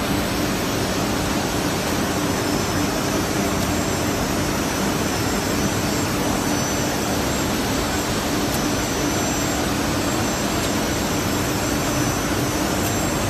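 P8 UV brush sanding machine running steadily: an even, loud rush of noise from its motors and rotating sanding brushes, with a constant low hum underneath.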